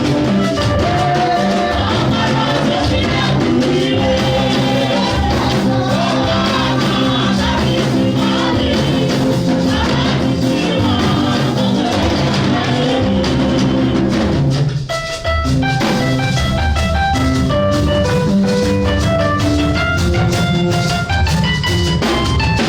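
Church worship music: singing over a band with drums, then about fifteen seconds in the voices drop away and it carries on as an instrumental melody of clear separate notes over the drums.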